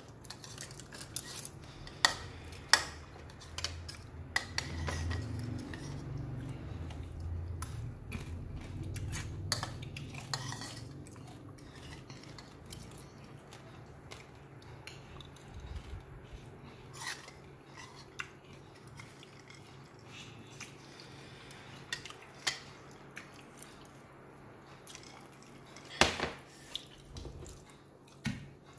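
Spoon and fork clinking and scraping against a plastic plate of noodles while eating, in scattered sharp clinks, the loudest about two seconds in and again near the end.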